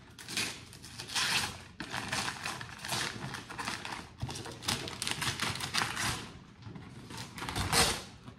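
Gift-wrapping paper rustling and crinkling as it is handled and pulled off a box, in a run of uneven crackly bursts, the loudest near the end.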